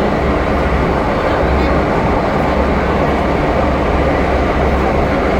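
MTR M-Train electric multiple unit running in a tunnel: a steady rumble and roar of wheels and traction equipment, with a strong low drone throughout.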